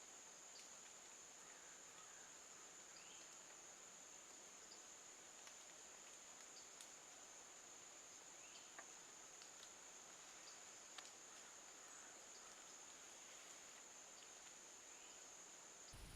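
Faint insect chorus: a steady, unbroken high-pitched trill, typical of crickets or katydids, with a few soft ticks over it.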